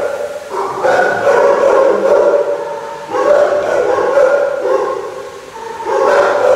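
Kennelled shelter dogs howling in long drawn-out calls, three in a row: one about half a second in, one about three seconds in, and one near the end.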